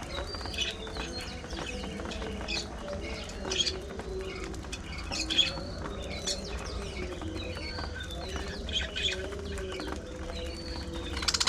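Budgerigars chirping in an aviary: scattered short, sharp chirps over a low, wavering tone. A rapid, buzzy chatter starts near the end.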